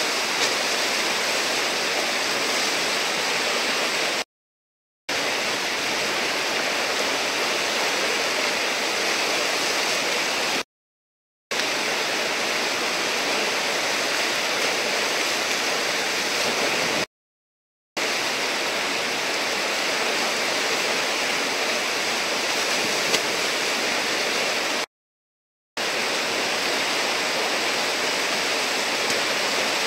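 Whitewater in a river hole, rushing loudly and evenly. It drops to complete silence four times for under a second each.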